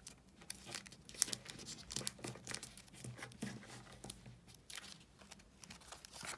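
Origami paper rustling and crinkling in short, irregular rustles as hands fold it and press the creases flat.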